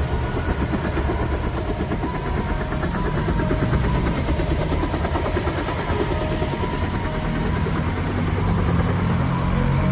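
Soundtrack sound effect: a steady, engine-like low rumble with a rapid flutter, like a helicopter.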